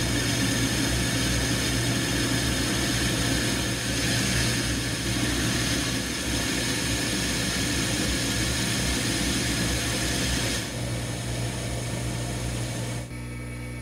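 South Bend Heavy 10 lathe running with its three-jaw chuck spinning while the tool turns down a treadmill roller flange held on a mandrel to bring it to diameter: a steady machine hum under the hiss of the cut. The hiss eases off about three-quarters of the way through, and the sound drops again shortly before the end.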